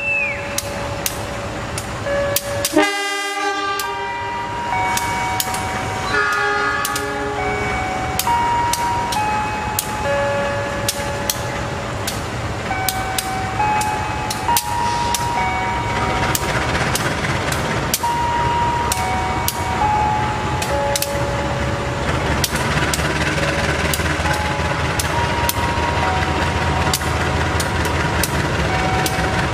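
GE CC 203 diesel-electric locomotive arriving slowly with its train, its engine rumble growing louder as it nears. The horn sounds briefly about three seconds in, and again shortly near six seconds. A slow tune of single notes plays throughout, with regular sharp clicks.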